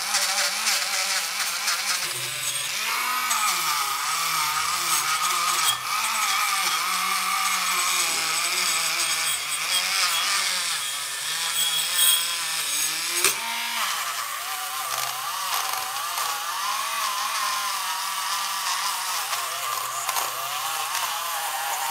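Handheld rotary tool running a small wire brush against rusty steel: a steady high motor whine with the scratchy hiss of the bristles on metal, the pitch wavering as pressure changes and dipping briefly about halfway through.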